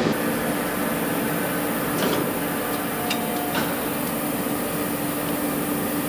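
Steady hum of a Scharmann CNC horizontal floor boring mill running under power, with a constant low tone. A few light clicks and a short, faint whine come a little past halfway.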